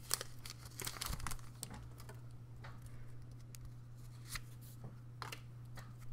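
Foil wrapper of a Pokémon booster pack crinkling and tearing as the pack is opened and the cards are pulled out, in scattered short crackles that are busiest in the first second or so, over a steady low hum.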